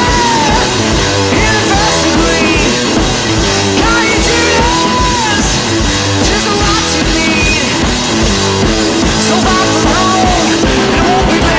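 Rock song with electric guitar and a steady drum beat.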